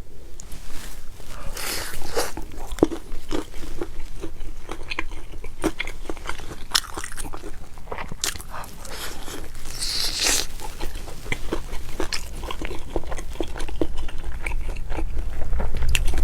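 Someone biting into and chewing crispy fried food, with a steady run of sharp, irregular crunches and crackles.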